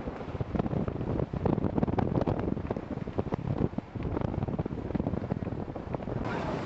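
Wind buffeting the camera microphone on a boat at sea: a gusty low rumble with rapid, irregular thumps.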